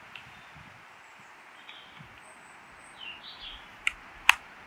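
Outdoor woodland ambience: a steady low hiss with a few short bird chirps in the middle. Near the end come two sharp clicks about half a second apart, from buttons being pressed on a handheld digital camera.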